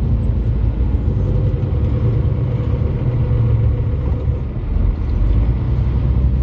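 Heavy goods lorry's diesel engine running under way, heard from inside the cab as a steady low drone with road rumble.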